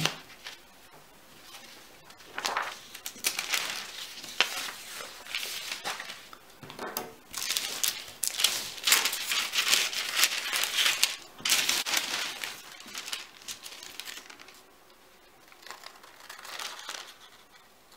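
Sheets of thin tracing paper rustling and crinkling irregularly as they are handled and moved on a table. Quieter snipping of scissors through the paper comes near the end.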